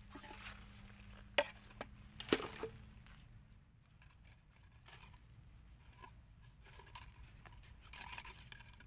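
Gloved hands rummaging through dry leaves and plastic litter, with scattered rustles and small clicks, and two sharp knocks about a second apart about a second and a half in.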